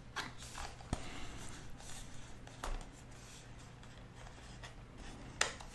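Faint rustling and a few light clicks of hands handling a cardboard watch box and its insert, with a louder rustle near the end.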